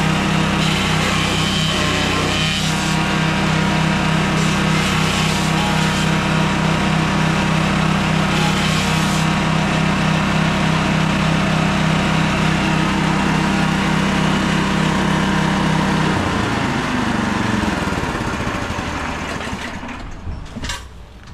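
Grass chopper driven by a small 7 hp engine, running steadily at speed while grass stalks are fed in and chopped near the start. About sixteen seconds in the engine stops and winds down, its pitch falling away over two or three seconds.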